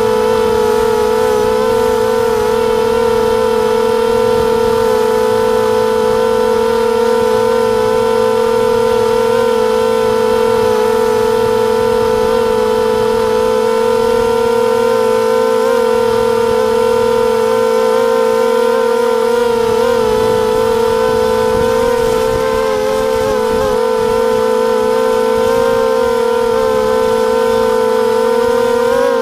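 Brushless motors and propellers of a 250-size racing quadcopter: a loud, steady whine held at one pitch, wavering briefly about twenty seconds in.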